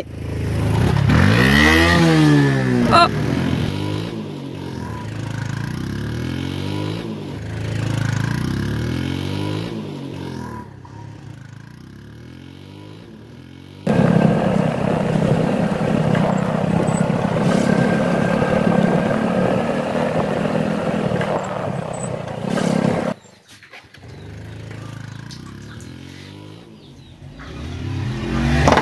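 Motor scooter engine revving, its pitch rising and falling several times before it fades away. About halfway through it returns suddenly as a steady run with wind rush while being ridden, then cuts off abruptly.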